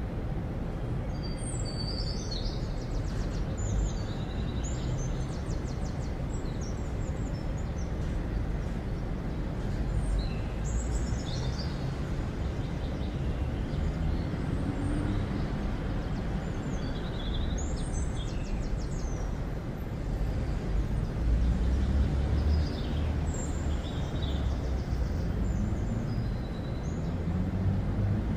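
Outdoor ambience: a steady low rumble with small birds chirping and trilling throughout. The rumble grows a little louder about two-thirds of the way in.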